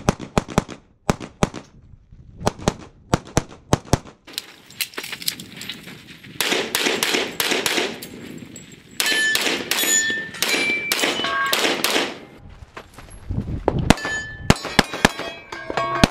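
Pistol fired in quick strings through a practical-shooting stage, sharp cracks coming several to a second, with metallic clangs and short rings among them, as of steel targets being hit.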